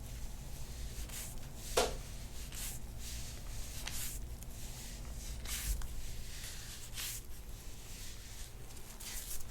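Soft rubbing and rustling of hands working over skin and clothing during hands-on soft-tissue work on the upper back, in a string of short, irregular scuffs over a low steady hum.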